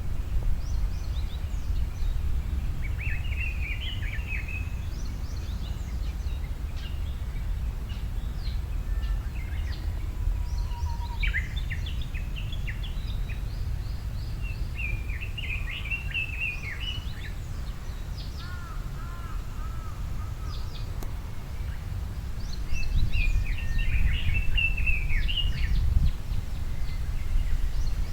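Small birds singing in short twittering phrases, one every few seconds, over a steady low rumble.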